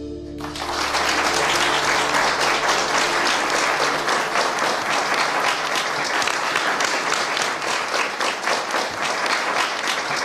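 An audience applauding, the clapping breaking out about half a second in and going on steadily, while a few held notes of background music fade away under it.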